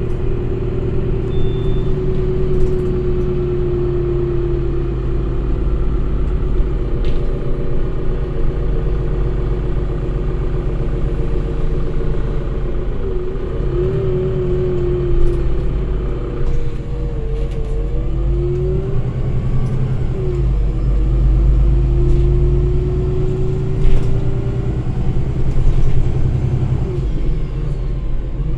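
Interior sound of a Solaris Urbino 8,9 LE city bus under way: its Cummins ISB6.7 six-cylinder turbodiesel hums low and steady while a whine rises and falls several times as the bus speeds up and slows through its Voith D854.6 automatic gearbox. A few short rattles from the body and fittings come and go.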